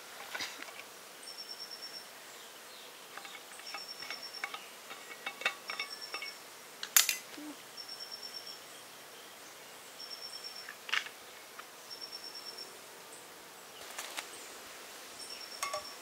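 An insect's short, high trill repeating about every two seconds, with scattered light clicks and two sharp knocks from camp gear being handled.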